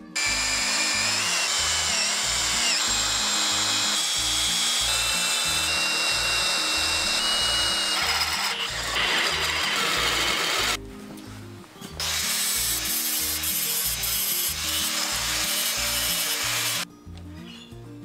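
Cordless drill boring through steel flat bar held in a bench vise, the twist bit grinding and squealing in the metal. It runs for about ten seconds, stops for about a second, then drills again for about five seconds before stopping.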